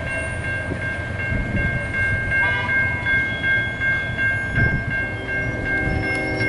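Railroad grade-crossing warning bell ringing steadily as a single high, piercing tone, over the low rumble of an approaching freight train.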